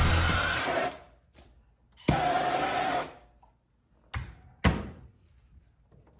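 Background music fading out in the first second. Then a hand-held propane torch flame hisses steadily for about a second, and two sharp knocks follow as the torch cylinder is set down on the wooden workbench.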